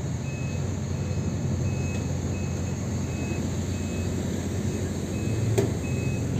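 Heavy construction machine's diesel engine running with a low steady rumble, while its travel or backup alarm sounds a single high beep about every 0.7 s. A sharp click comes about five and a half seconds in.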